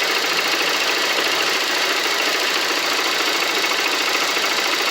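Motorcycle engine idling steadily with a new cam chain tensioner fitted; the earlier cam chain noise is gone.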